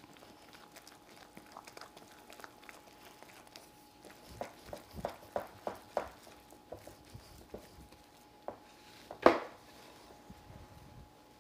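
Spatula stirring stiff flour batter in a glass mixing bowl: soft scrapes and a run of light taps against the bowl in the middle, then one louder knock near the end. A faint steady hum sits underneath.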